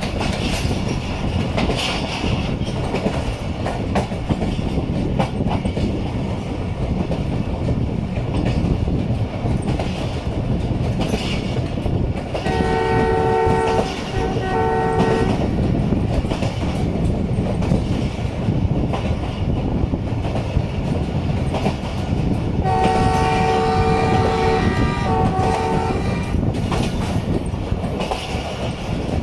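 A ZCU-20 diesel locomotive's horn sounds a chord of several notes twice, about 12 seconds in and again about 23 seconds in. Each sounding lasts two to three seconds and is broken by short gaps. Underneath runs the steady rumble and clickety-clack of the passenger train moving along the track.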